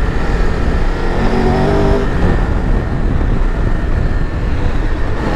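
Triumph Tiger 1200 Rally's three-cylinder engine running as the bike is ridden off-road, its note rising about a second and a half in and dropping again, over a constant low rumble.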